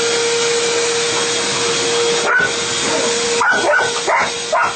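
A vacuum cleaner runs with a steady hum and whine, which drops off a little over three seconds in. A Labrador barks and yips at it, once about two seconds in and then several times in quick succession near the end.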